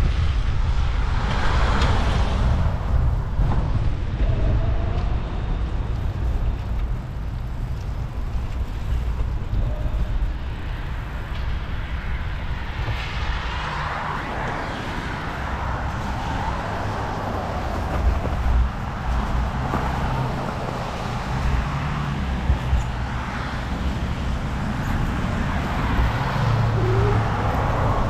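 Road traffic passing along a busy road, heard over a low wind rumble on the microphone of a camera riding on a moving bicycle; the traffic noise swells as vehicles go by, most clearly near the start and about halfway through.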